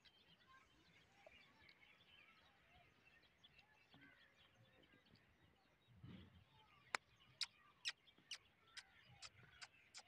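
Faint, scattered twittering of small birds, then a soft thump about six seconds in. It is followed by a run of sharp clicks, about two a second, through the last three seconds.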